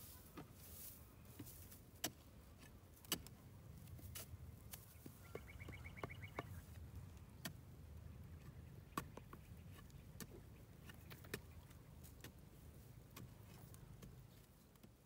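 Faint, irregular knocks and crackles of a wooden stick digging into dry ground among dry grass stubble. A short rapid trill of high pulses comes about five to six seconds in.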